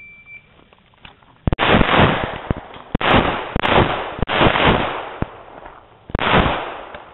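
A shot timer beeps once at the start. About a second and a half later comes a rapid string of semi-automatic pistol shots, roughly two a second, each with a ringing echo, with a brief gap near six seconds before the firing resumes.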